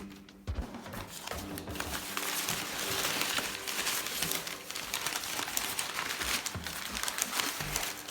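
Packaging crinkling and rustling as it is handled and unwrapped, a dense run of fine crackles that starts about a second in.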